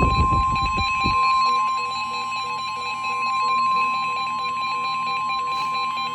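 NOAA weather radio alarm: a steady high warning tone, the 1050 Hz alert tone sent before a warning is read, over fainter rapid beeping from the radios. A burst of hissing static fades out about a second in.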